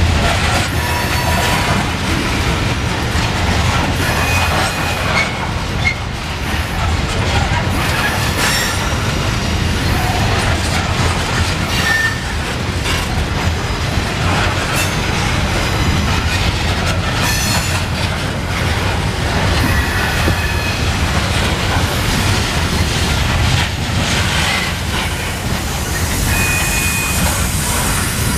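Freight cars, mostly coal hoppers, rolling past close by: a steady rumble of steel wheels on rail with repeated clicks over rail joints. There are a few brief high wheel squeals, about four seconds in, around twelve seconds, and near the end.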